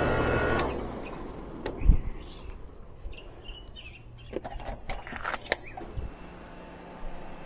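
Air-conditioning condenser running with a steady hum, then shutting down about half a second in. Afterwards a thump, a few sharp clicks and birds chirping.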